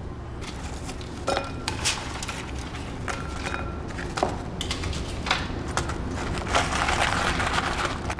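Fried chicken wings being put into sauce and tossed in a bowl: repeated knocks and clatter against the bowl, some with a short ringing tone, and a denser rustling, scraping stretch near the end.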